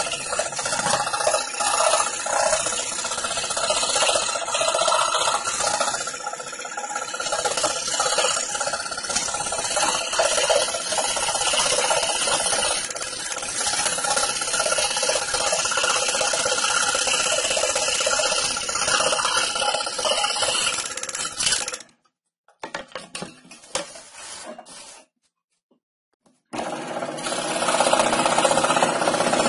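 Scroll saw running, its fine blade reciprocating and cutting through plywood in a steady mechanical buzz. The sound cuts off suddenly about three quarters of the way through, leaving a few seconds of near quiet with a few faint ticks, then the saw sound starts again.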